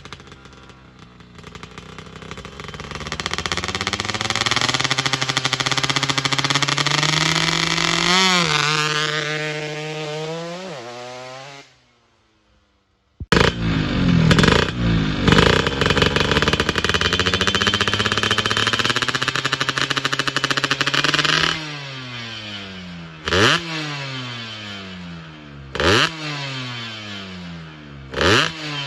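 Two-stroke Yamaha F1ZR moped engine in a 125cc build with a PWK 28 carburettor, revving hard: it climbs to high revs and holds, drops back, cuts out briefly, then runs high again, and near the end it is blipped three times, each sharp rise falling away.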